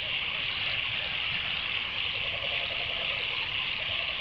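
Dusk ambience in the bush: a steady, high-pitched chorus of insects, with a faint run of rapid pulsing calls underneath about halfway through.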